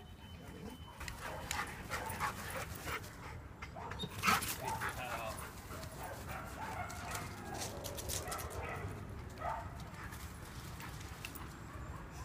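Husky making short yips and whines while playing, with the loudest outburst about four seconds in.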